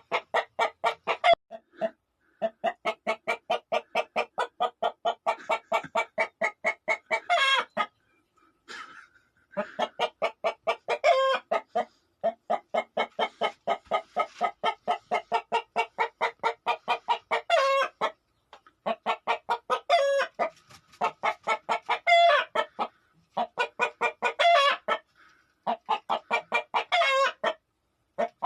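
Chicken hen cackling: runs of rapid clucks, each run ending in a louder, higher rising squawk, repeated again and again with short pauses between.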